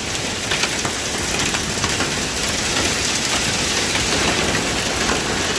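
Monsoon storm: a heavy downpour driven by strong wind, a steady dense rush of rain with scattered small hits of drops and hail, and wind rumbling on the microphone.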